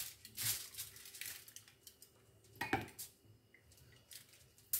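A few soft scrapes and light clinks of a metal fork, the sharpest about halfway through, as thick seasoning paste is spooned into a whole fish.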